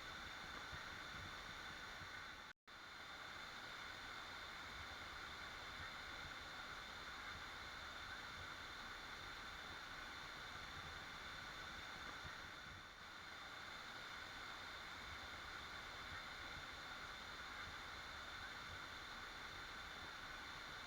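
Waterfall: water falling and rushing in a steady, even noise, cut off for a split second about two and a half seconds in.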